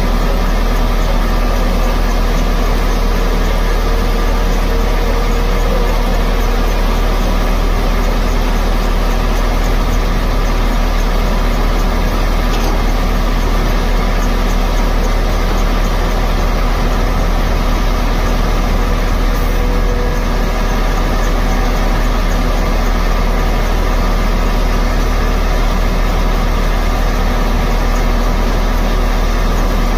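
Tata Hitachi EX215LC excavator's diesel engine running steadily and loudly as the machine digs, with no break or rise in the sound.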